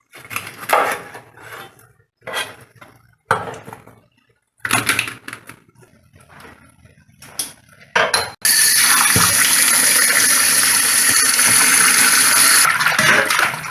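A few short clattering kitchen noises, then water running steadily from a tap for about four seconds.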